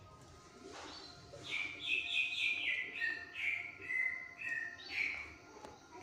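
Chinese hwamei (wambi) singing a run of clear whistled notes that step down in pitch, starting about a second and a half in and ending at about five seconds.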